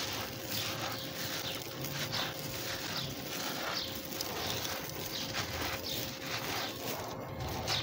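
Hands crushing and crumbling a packed ball of damp crushed-stone grit, a gritty crunching with grains trickling and spilling onto a pile, surging again about every half second to a second.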